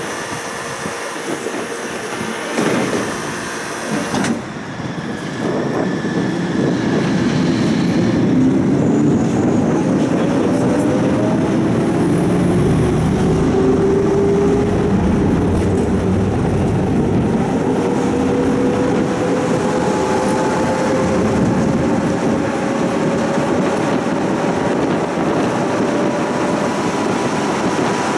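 Tram heard from inside, pulling away and gathering speed: a couple of knocks in the first few seconds, then a steady rumble of wheels on rails that grows louder, with a motor whine slowly rising in pitch as it accelerates.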